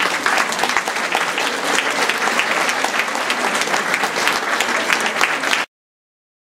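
Audience applauding, a dense, even clatter of many hands clapping that cuts off suddenly near the end.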